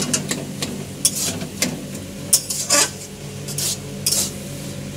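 A spatula stirring and scraping a thick vegetable mash in a kadai, in irregular strokes, with a light sizzle and a steady low hum underneath.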